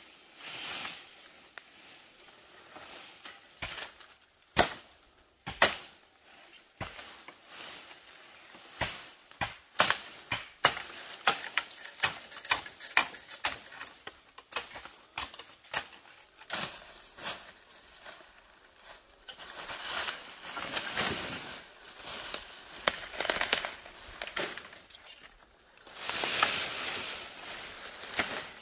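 Irregular sharp snaps and knocks, several a second at times, mixed with rustling: hands-on handling work.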